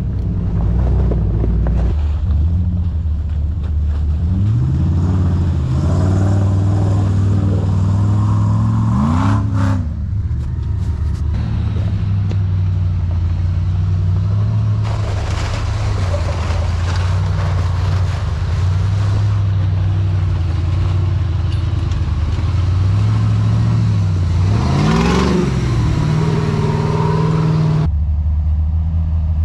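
Off-road Jeep engine running steadily in a low gear, revving up three times with rising pitch, with stretches of rushing noise as it works through broken ice and mud.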